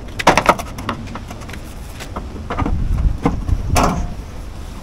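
Square downpipe knocking and scraping in a run of separate clatters as it is lifted and fed into place.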